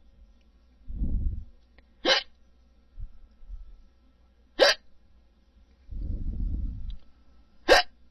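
A person hiccuping three times, each a short sharp hic, about two and a half to three seconds apart, with low muffled rumbles in between.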